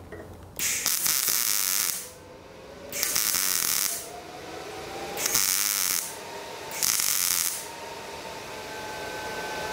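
MIG welder arc crackling in four short bursts of about a second each, quick trigger pulls. This is stitching: filling a blow-through hole in paper-thin fuel tank sheet metal by welding it up a little at a time.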